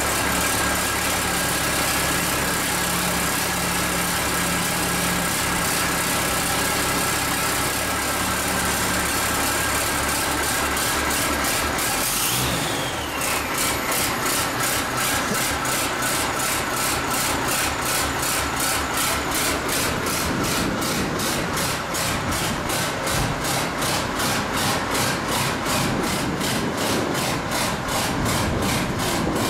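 Ford TW-25 tractor's turbocharged six-cylinder diesel running with no exhaust fitted, so it blares straight from the open turbo outlet. A steady turbo whistle is heard; about 13 seconds in the engine drops back, the whistle falls in pitch, and the engine settles to an even, rasping beat. The turbo is one the owner says needs reconditioning.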